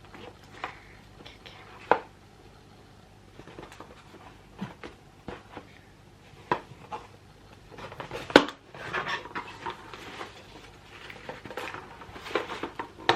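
A parcel being cut open with small eyebrow scissors and handled: irregular snips, clicks and taps with crinkling packaging. The sharpest snap comes about eight seconds in.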